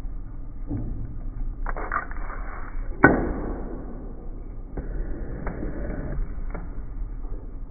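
Metal shaper running at about sixty strokes a minute, its ram driving a carbide cutting tool across the work once a stroke over a steady low motor hum. There is one sharper click about three seconds in.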